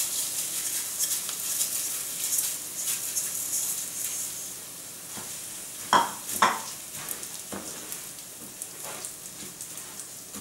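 Rice poured into a frying pan of onion in hot oil, sizzling and crackling as it is stirred with a wooden spoon: the rice toasting at the start of a risotto. The sizzle slowly dies down, with two sharp knocks close together about six seconds in.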